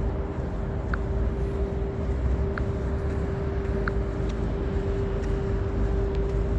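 Steady low rumble of outdoor background noise with a constant hum, and a faint short chirp about every second and a half.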